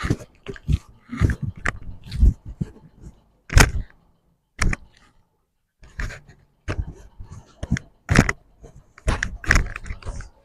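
An irregular series of sharp knocks, slaps and thuds, a dozen or so with short quiet gaps between them, from hands handling a patient's body during a chiropractic adjustment.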